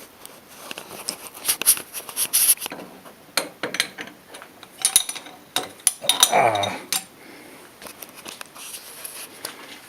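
Metal clinks, taps and knocks as a chuck stop is fitted into a lathe chuck by hand. About six seconds in comes a louder short sound that falls in pitch.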